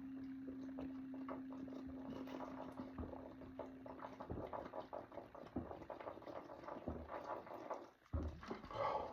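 Carbonated Pepsi Zero being chugged: wet liquid sounds with many small crackling fizz and gulp clicks, and a louder event in the last second. A steady low hum stops about four seconds in.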